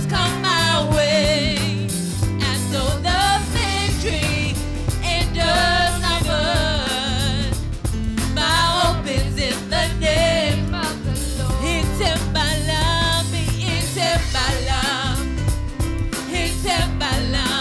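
A woman singing a gospel worship song into a microphone, with long wavering held notes, backed by a live band on keyboard and drums.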